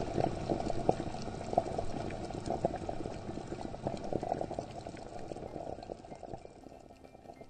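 Water bubbling and gurgling: a dense run of irregular pops and burbles that slowly fades away.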